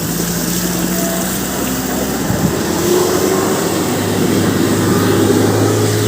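Suzuki Carry pickup's engine pulling hard under load on a rough dirt track, its pitch climbing about halfway through and holding high, over a steady rushing noise.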